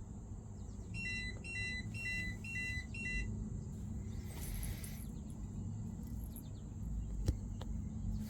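Marine electronics beeping: five short two-tone electronic beeps, about two a second, as the newly wired AIS system is switched on. A brief hiss follows, then a single click near the end, over a low steady hum.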